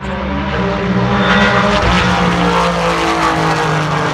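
IMSA sports cars racing past at full speed, several engines running loud at once with their notes overlapping and shifting in pitch as they go by.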